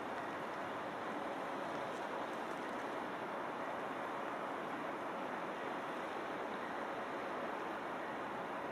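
Steady, even rushing noise with no separate events or calls.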